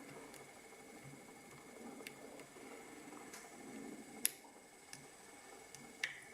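Faint metallic ticking and scraping of a lock pick and tension tool working the pins of an ABUS Extreme 83WB/53 padlock during single-pin picking, with a sharp click about four seconds in and another near the end.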